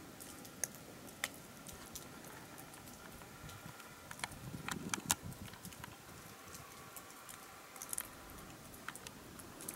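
Quiet room tone with faint, irregular short clicks and ticks scattered through it, and a faint low rumble about halfway through.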